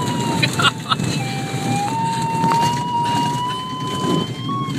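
Sailplane's audio variometer giving a steady electronic tone that steps up and down in pitch, over the low rumble of the glider rolling along the ground after landing.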